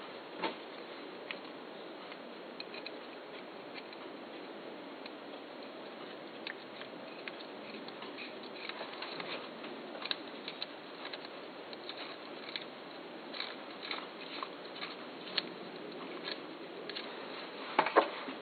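Small clicks, taps and rubs of a deer-antler shift knob and a metal bolt being handled in gloved hands, over a steady background hiss, with a louder knock or two near the end.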